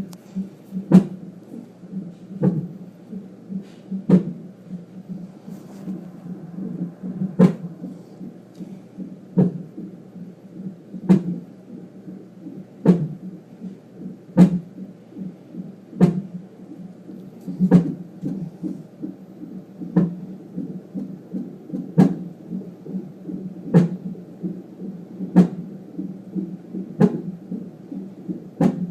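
Hiccups: short sharp hics repeating at an even pace, about one every one and a half to two seconds, over a steady low background noise.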